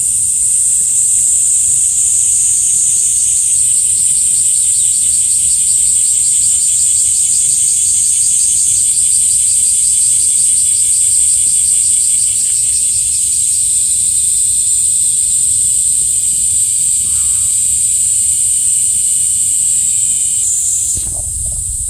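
Loud chorus of insects shrilling: a steady high-pitched buzz with a fast pulsing trill beneath it, the trill dropping out near the end.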